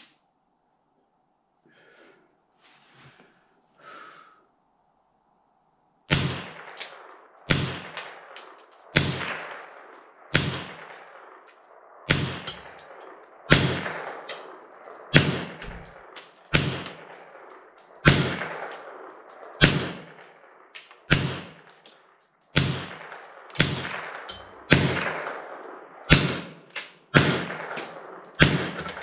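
Rifle shots from a 20-inch AR-15 fitted with a .22 rimfire conversion, fired singly and steadily about every second and a half, each crack followed by a short echo under the range roof. A few faint clicks come first, before the shooting starts about six seconds in.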